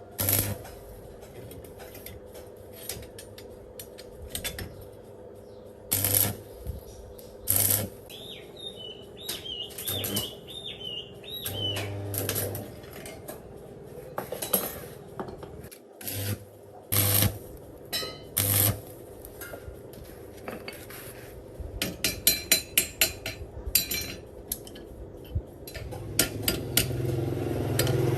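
Metal parts and tools being handled on a workbench: scattered clinks and knocks, with a quick run of light clinks about three quarters of the way through.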